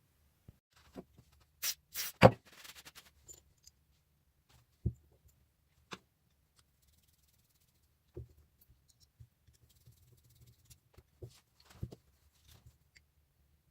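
Scattered knocks and clicks of objects being handled on a workbench, with one loud knock about two seconds in followed by a short rattle, and a few lighter taps later.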